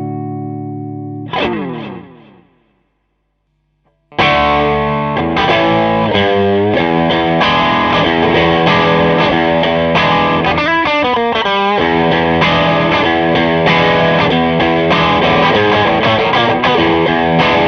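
Electric guitar through a Klon Centaur-style overdrive pedal, lightly driven. A held chord dies away, a falling scrape runs down the strings about a second in, a short silence follows, then a chordal riff starts again about four seconds in, with a wavering bend midway.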